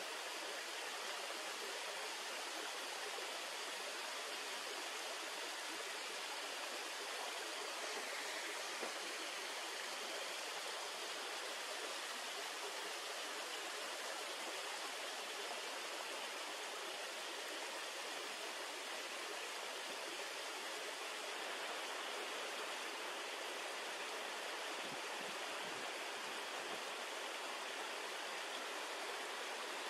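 Small waterfalls spilling down steep rock ledges: a steady, even rush of falling water.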